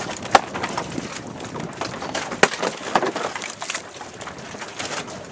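Wind buffeting the microphone over the rush of water around a boat at sea, with a few sharp knocks or pops, the loudest about a third of a second in and again about two and a half seconds in.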